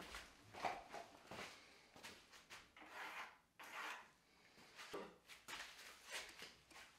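Faint handling sounds of a wooden table base: irregular soft rubs and light knocks as the frame is shifted and lifted off a wooden workbench.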